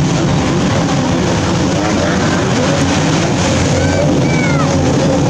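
Outboard motors of racing Thundercat inflatable catamarans running hard: a steady engine whine whose pitch wavers up and down as the throttle changes.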